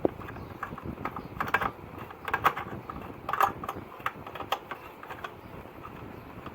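Irregular light clicks, taps and short scrapes of hand tools working on the metal chassis and heatsink of an AV receiver, busiest in the first few seconds.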